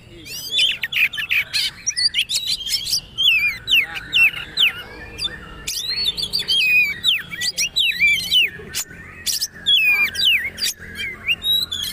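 Oriental magpie-robin of the white-bellied 'kacer poci' kind singing a fast, busy 'trotol' song: a dense string of short whistled notes sliding up and down, mixed with sharp clicking notes, with hardly a pause.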